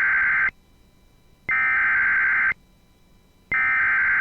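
Emergency Alert System SAME header data bursts: identical harsh digital warbling bursts, each about a second long and about a second apart. These are the coded header that starts a broadcast weather alert.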